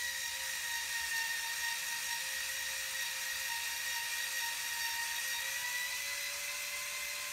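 Small handheld rotary power tool running at high speed as a steady, high-pitched whine, driving an M3 grub screw into a 3D-printed rod mount so that the friction cuts its own thread in the plastic. The pitch sags slightly in the middle and comes back up near the end.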